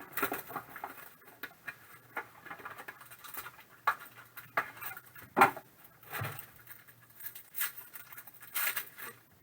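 Hands opening a sealed trading card box and its packs: irregular rustling, scraping and tapping of cardboard and wrappers, loudest about five and a half seconds in.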